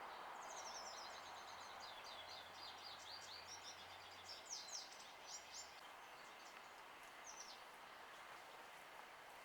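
Faint songbird singing: a quick run of short, high chirping notes lasting about four seconds, with a couple more notes near the end, over a quiet outdoor background hiss.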